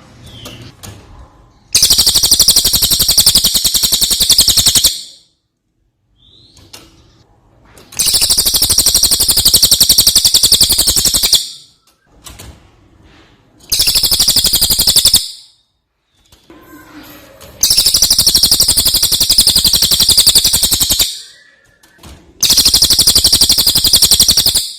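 Brown cililin songbird singing in loud bursts of very fast, buzzy trilling, five phrases of a few seconds each, with short pauses and faint chirps between them.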